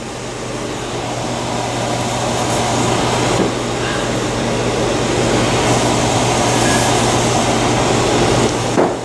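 Steady fan-like rushing with a constant low hum. It swells over the first few seconds and cuts off sharply near the end.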